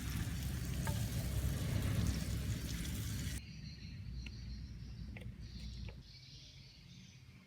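Pork, onion and prawns sizzling in a hot frying pan. The sizzle cuts off abruptly about three and a half seconds in, leaving a quieter background with a few faint clicks.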